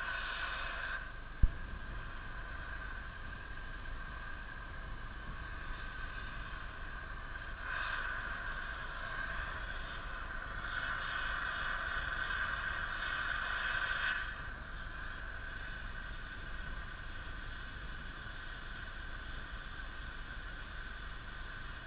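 Gasoline-powered cutting torch hissing steadily as it cuts through a steel beam, the hiss swelling louder for stretches. A single sharp knock comes about a second and a half in.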